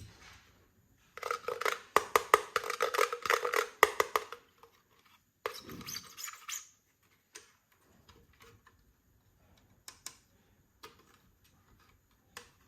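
Packaging being handled and opened: about three seconds of crinkling and crackling with many sharp clicks, a shorter rustle a little later, then scattered light clicks and taps of small plastic toy pieces.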